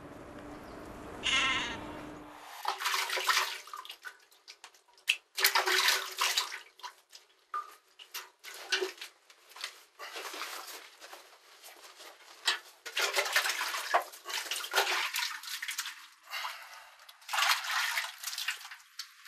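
Cow being milked by hand: jets of milk squirting into a metal pail in quick, irregular spurts. A brief pitched call sounds near the start.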